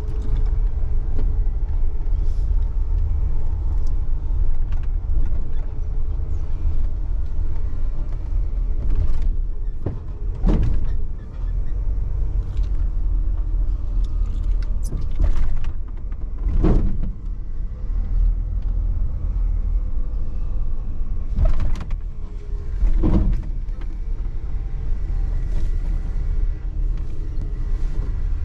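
Car cabin road rumble while driving: a steady low drone of tyres and engine, with a few brief knocks.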